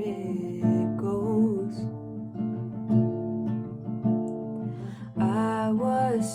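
Music: an acoustic guitar plays, and a singing voice holds a wavering, wordless line about a second in and again near the end.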